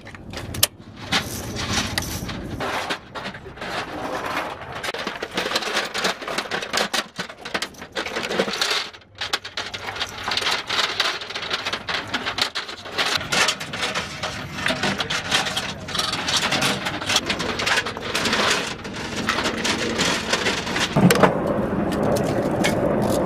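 Metallic clicks, knocks and rattling of gun parts and linked ammunition belts being handled, over a continuous background noise that turns into a steadier hum near the end.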